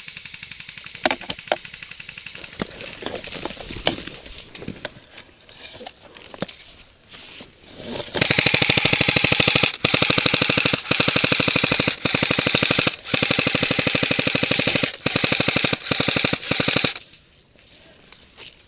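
Airsoft gun firing on full auto close by: a loud, very rapid rattle in a string of about seven bursts with short gaps, starting about eight seconds in and stopping a couple of seconds before the end. Before that, a fainter rapid rattle of more distant airsoft fire with scattered clicks.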